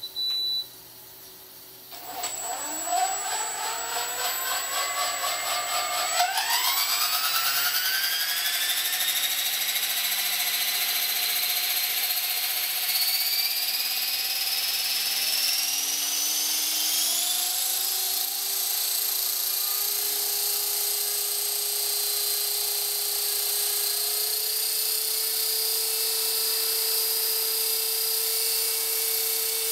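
Blade 450 electric RC helicopter spooling up: a short high beep at the very start, then from about two seconds in the motor and rotor whine rises in pitch over several seconds. It climbs once more a little past halfway, then holds a steady high whine as the rotors spin at speed.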